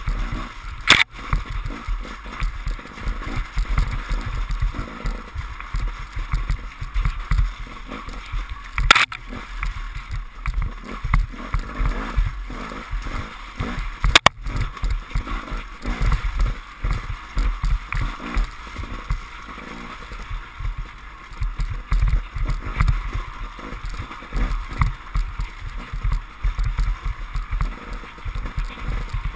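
KTM enduro motorcycle ridden hard along a muddy trail, its engine running under load with constant low rumbling and buffeting. Three sharp knocks about one, nine and fourteen seconds in.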